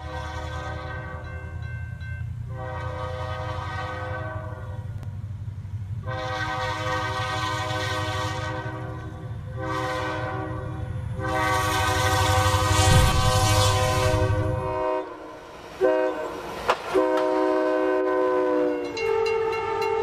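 Diesel locomotive's multi-tone air horn sounding a run of long blasts and one short one over a heavy low rumble as it pushes through deep snow. About fifteen seconds in the rumble stops abruptly and a train horn keeps sounding, changing pitch near the end.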